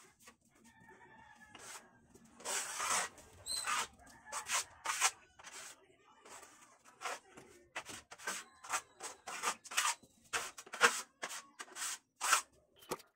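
Trowel spreading skim coat over a bare concrete wall: a run of irregular scraping strokes that begins about a second and a half in and comes quicker in the second half.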